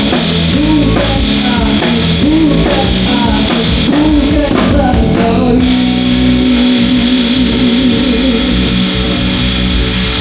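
Live rock band playing loud with drums and electric guitar; the melody line arches up and down, then settles about halfway into one long held note with vibrato.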